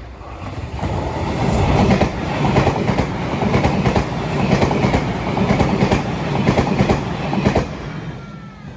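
Train passing over the rail joints at a level crossing, its wheels clattering over them in a rapid run of loud clacks. The sound builds over about a second, holds, and fades away near the end.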